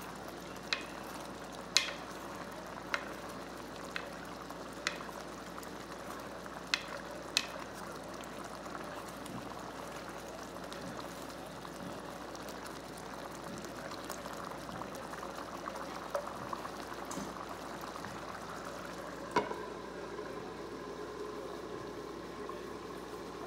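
Stainless steel ladle stirring a large pot of simmering beef congee: the ladle clinks against the pot about once a second for the first several seconds over steady bubbling. One sharp, louder knock near the end as the lid goes on the pot.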